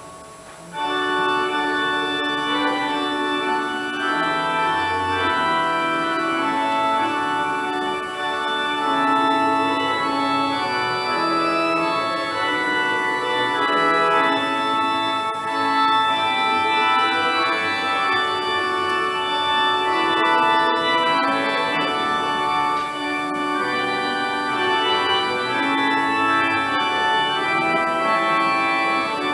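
Instrumental hymn music played over a loudspeaker, moving in held chords; it starts about a second in after a short pause.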